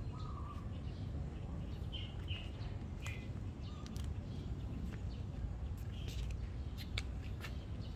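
A cat crunching dry kibble, heard as a few sharp crunches, with small birds chirping in the background over a low steady rumble.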